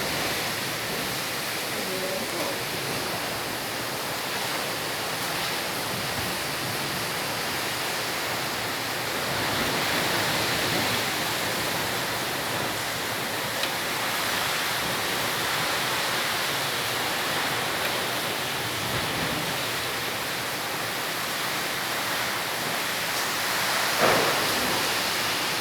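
Heavy storm rain pouring down in a steady, even rush, with a brief thump near the end.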